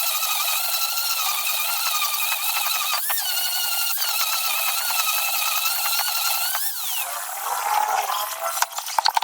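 A high-pitched electric power tool motor whining steadily, its pitch dipping briefly and recovering about three seconds in, then winding down. Scraping and a quick run of clicks follow near the end.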